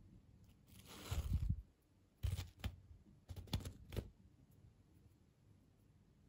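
Handling noise from hands working gummy worms on artificial grass turf. A rustle comes about a second in, then a run of sharp crackles and taps between two and four seconds in.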